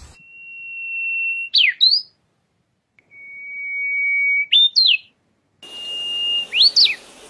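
Brownish-flanked bush warbler singing three phrases. Each phrase is a long, steady whistle that swells in loudness, followed by a quick flourish of notes sweeping up and down.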